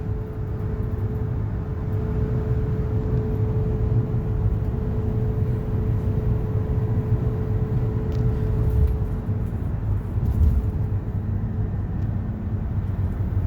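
A car driving, with a steady low rumble of road and engine noise and a faint steady tone that fades out about two-thirds of the way through.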